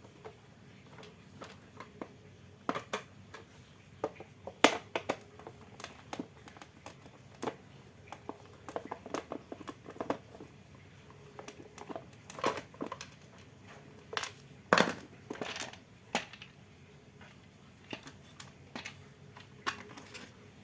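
Irregular clicks, knocks and crinkling as fan-motor parts and their packaging are handled, with a few sharper knocks standing out.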